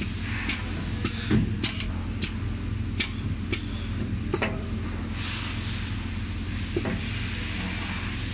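Automated assembly machine running with a steady low hum and a high whine, and a series of sharp metallic clicks and knocks at irregular intervals through most of the stretch. A short hiss comes about five seconds in.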